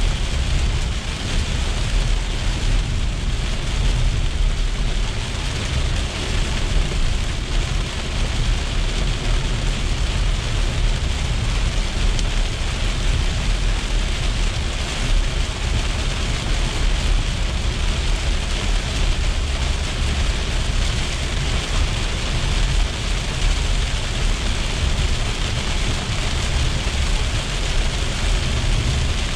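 Heavy rain on a car's windshield and roof, heard from inside the moving car over a steady low rumble of tyres on the wet road.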